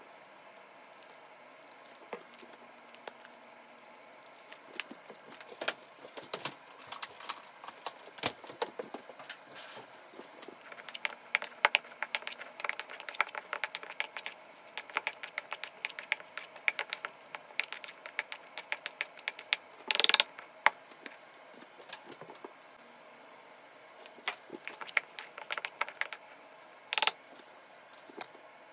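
Hands mixing and squeezing seasoned pieces of firm tofu in a plastic mixing bowl: many small clicks and taps against the bowl, busiest in the middle, with two louder knocks near the end.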